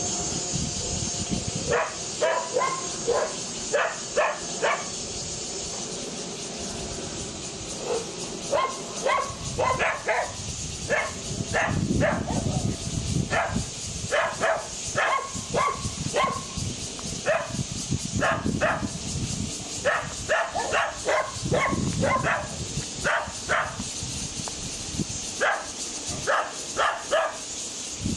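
Dogs barking in repeated quick runs of several short barks, with brief pauses between the runs.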